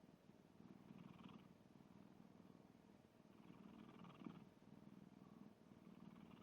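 Domestic cat snoring softly in its sleep: a low buzzing rasp with each breath, swelling and fading about once every two and a half seconds.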